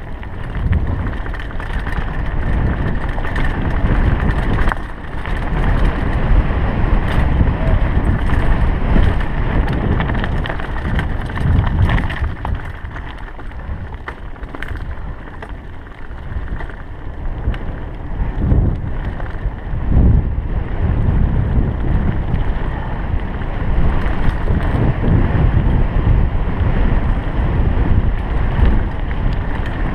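Wind rumbling on a chest-mounted GoPro's microphone and mountain-bike tyres rolling fast over loose gravel and stones on a descent, with scattered clicks and rattles from the bike over rough ground.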